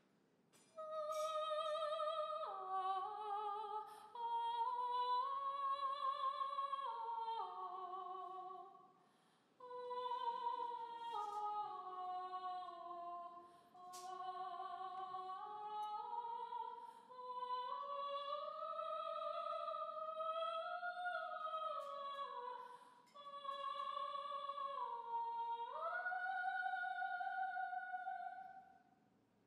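A single high voice singing unaccompanied in an operatic style: long held notes with vibrato, sliding between pitches, in several phrases broken by short pauses for breath. This is a recording of a live opening performance.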